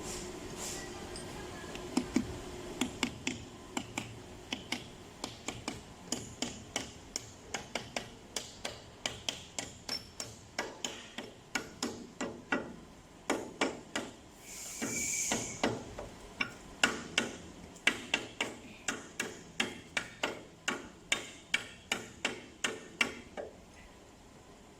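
Repeated sharp metal clicks, about three a second, from hand-tool work on the bearing base of a single-screw oil-free compressor air end, with a short hiss about halfway through.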